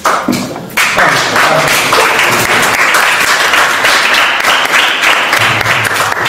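A class of students applauding, a dense, steady clapping that swells in about a second in.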